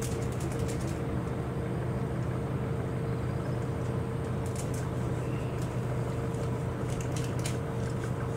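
A steady low mechanical hum with a constant tone, broken by a few faint high clicks or ticks.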